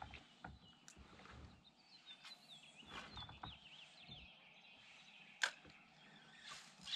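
Faint birdsong, a few short chirps, over quiet outdoor ambience, with light knocks and clicks from gear being handled in a kayak and one sharp click about five and a half seconds in.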